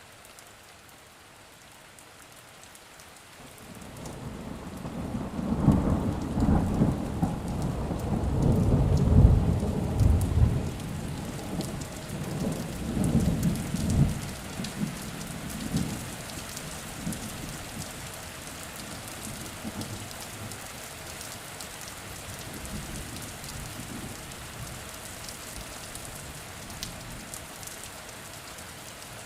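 Steady rain falling, with a long roll of thunder that builds about four seconds in, stays loud for around ten seconds, then slowly dies away, leaving the rain alone.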